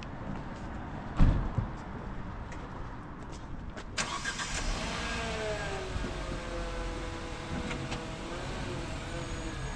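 A car engine in the street: one loud thump about a second in, then from about four seconds in an engine running close by, its pitch wavering and sinking a little before it settles.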